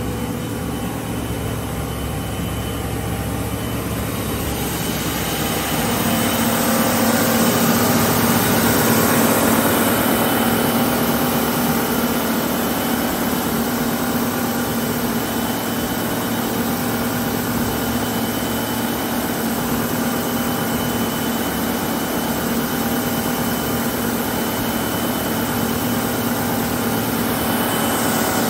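OTT EU 110 WS two-head wide belt sander running steadily. About four seconds in, a hiss builds; shortly after, a steady hum joins and the machine gets a little louder before settling.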